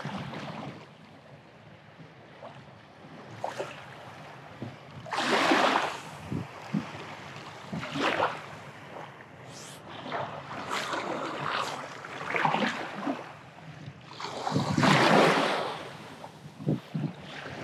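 Small waves washing up onto a sandy beach. The wash swells and fades, loudest twice: about five seconds in and again near fifteen seconds.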